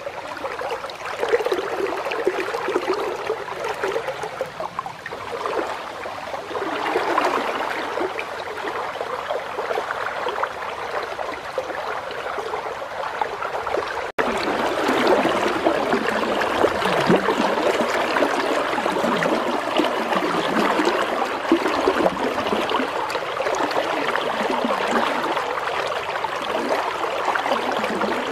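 River water flowing and rippling past the bank in a steady rushing noise, which breaks off for an instant about halfway and comes back a little louder.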